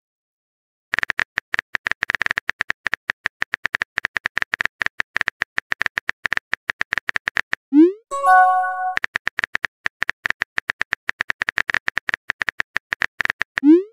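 Phone-keyboard typing clicks from a texting-story app: a fast, even run of taps for several seconds, then a quick rising whoosh as the message is sent and a short chime. A second run of typing follows, ending in another whoosh near the end.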